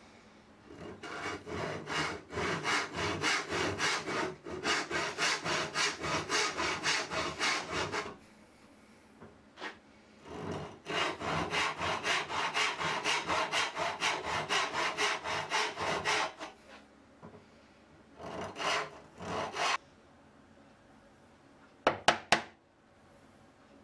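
Hand saw cutting wood in quick back-and-forth strokes, about three a second, in two long runs with a pause between, then a few last strokes. Near the end, three sharp knocks.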